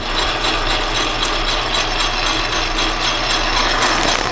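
Small metal lathe running with the spindle turning, a steady gear-driven whine.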